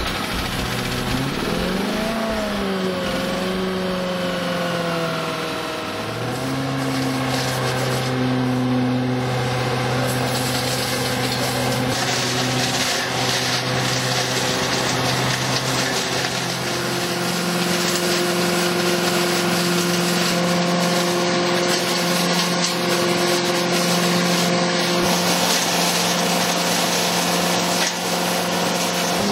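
Gasoline engine of a LASKI VD400 walk-behind leaf vacuum running, rising in pitch early on and then holding steady, with the rushing air and debris noise of the suction fan growing stronger partway through.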